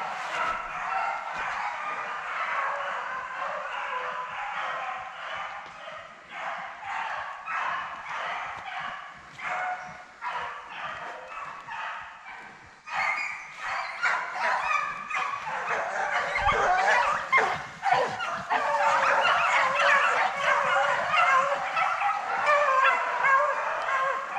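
Pack of beagles baying as they run a rabbit track, many voices overlapping. The chorus grows louder and fuller from about halfway through.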